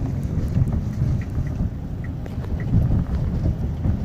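Low, steady rumble of a car driving in the rain, heard from inside the cabin: road and wind noise, with a few faint scattered ticks.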